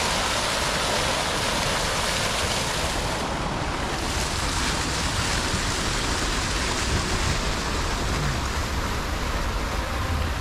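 Fountain jets splashing into a pool: a steady, unbroken rush of falling water.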